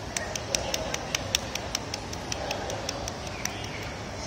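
A quick run of sharp clicks, about five a second, that thins out after about two seconds, over a faint murmur of a large hall.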